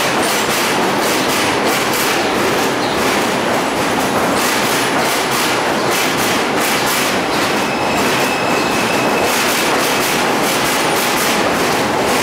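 Bombardier R142 subway train pulling into the station past the platform: steady wheel-on-rail noise with clacking over the rail joints. A faint high whine comes in briefly about eight seconds in.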